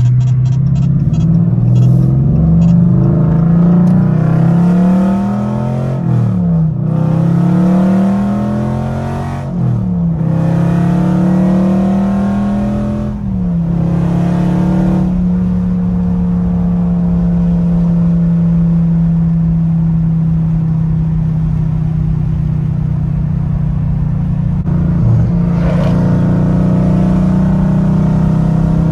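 2020 Dodge Scat Pack's 392 HEMI V8, straight-piped with Stainless Works headers, catless midpipes and no mufflers, heard loud from inside the cabin. It pulls through several upshifts, the pitch climbing and dropping back with each shift, then settles to a steady cruise from about halfway.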